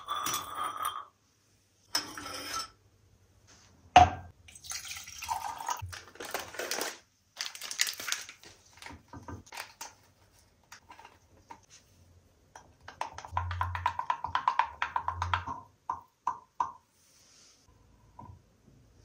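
Ground coffee spooned into a small glass pot of water, with light scraping and tapping and a sharp clink about four seconds in. Later comes a fast run of clinks as a glass rod stirs the coffee against the inside of the glass pot.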